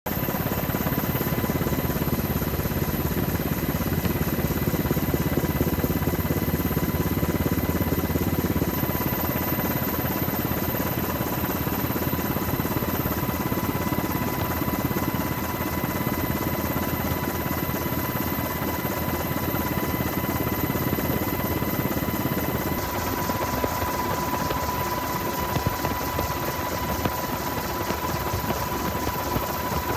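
Steady helicopter rotor and engine noise in flight, heavy in the low end with a constant high tone running through it. The sound shifts abruptly about 9 and 23 seconds in.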